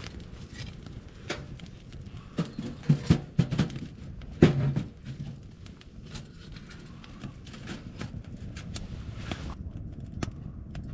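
Firewood being loaded into a small steel wood stove: several knocks of logs against the firebox, the loudest about four and a half seconds in, then the fire crackling and popping.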